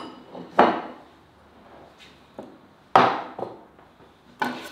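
Three sharp wooden knocks, the loudest about three seconds in: a wooden board or platter being set down and shifted on a wooden worktable.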